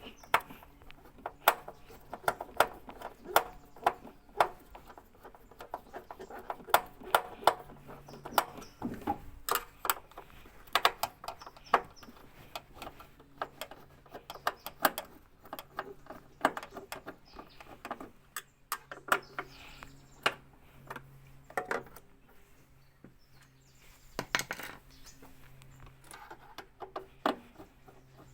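Irregular metallic clicks, taps and clinks of hand tools and screws as fixings are undone on a washing machine's panels, dozens of sharp knocks at an uneven pace.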